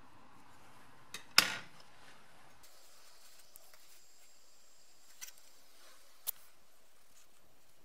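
Quiet handling sounds at a wooden workbench as scissors cut a felt disc and a screwdriver is pushed through it: one sharp clack about a second and a half in, the loudest, then a couple of fainter ticks later on.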